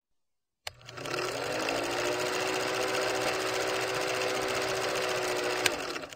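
Film projector running, a sound effect laid over a countdown leader: a rapid, steady mechanical clatter with a low hum under it. It starts with a click just under a second in, has a sharp click shortly before the end, and then cuts off suddenly.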